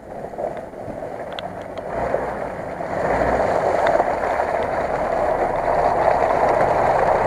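Engine of a lifted off-road truck running as it drives toward the microphone over a muddy track. It gets steadily louder, with a clear jump about three seconds in.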